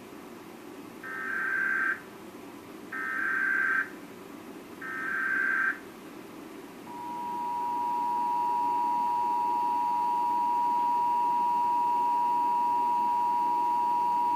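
Emergency Alert System header: three bursts of about a second each of the digital SAME data tones, then, about seven seconds in, the steady two-tone EAS attention signal (853 and 960 Hz together) begins and holds, opening a Required Monthly Test.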